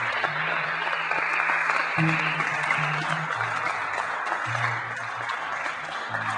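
Audience applauding steadily while a low instrument goes on playing slow, held bass notes that step between a few pitches under the clapping.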